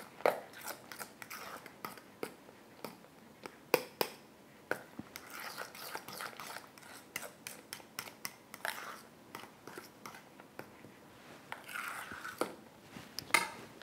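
A metal utensil stirring and mashing a soft camembert cheese spread in a metal bowl, with irregular clicks and scrapes of metal on metal as the paprika is worked in.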